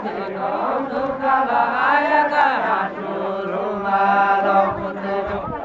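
Men singing a deuda folk song together in a chanted style, with a long held note in the middle of the phrase.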